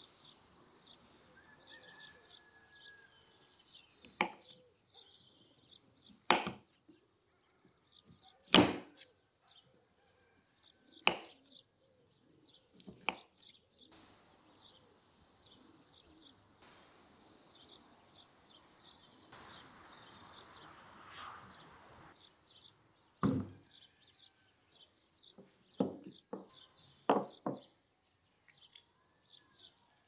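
Small birds chirping on and off throughout, with several sharp knocks a few seconds apart and a quick cluster of them near the end; the knocks are the loudest sounds.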